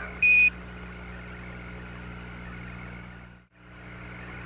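One short, loud Quindar tone beep, the NASA mission-control radio keying tone, lasting about a quarter second just after the start. It is followed by the steady hiss and low hum of the Apollo air-to-ground radio link, which drops out briefly about three and a half seconds in.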